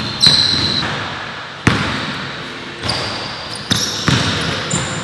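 Basketball bouncing on an indoor gym floor at an irregular pace, about six bounces, each echoing in the big hall, with short high-pitched sneaker squeaks in between.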